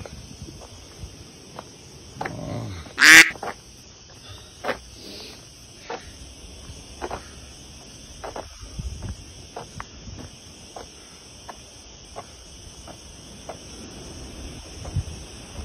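Footsteps on an asphalt road at a walking pace, over a steady high hiss, with one loud, short sound about three seconds in.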